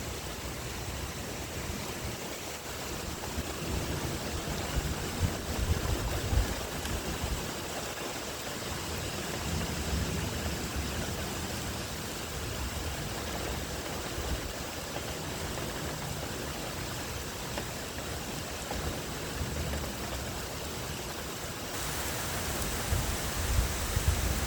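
Steady rain falling during a thunderstorm, with a few low rumbles about five to seven seconds in. The rain turns brighter and heavier near the end.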